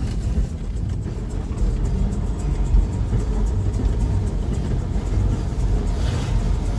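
Steady low rumble of a Kia Bongo III camper van driving over a rough, uneven concrete road, heard from inside the cab.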